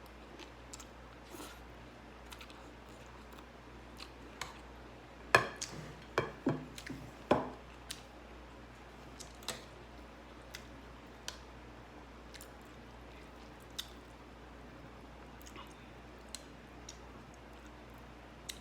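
Close-up eating sounds: soft chewing and mouth clicks, with a run of louder crunching clicks about five to seven and a half seconds in.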